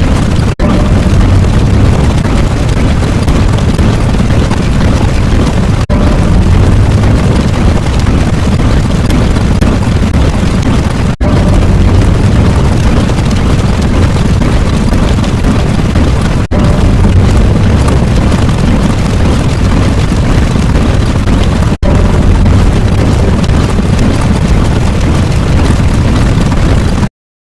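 Loud, continuous rumbling sound effect, explosion-like, played as a loop that restarts with a brief cut about every five seconds.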